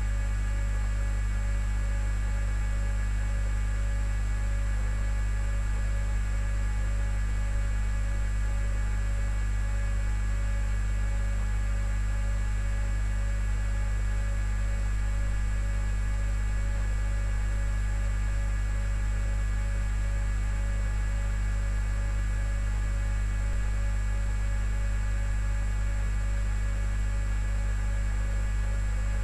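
Steady electrical hum: a strong low drone with several thin, unchanging higher tones and a faint evenly pulsing tone, with no other events.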